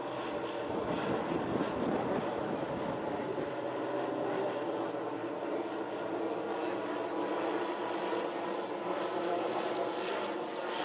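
The twelve 10 cc O.S. model engines of a 1:10 scale Dornier Do-X flying boat model running steadily together in flight.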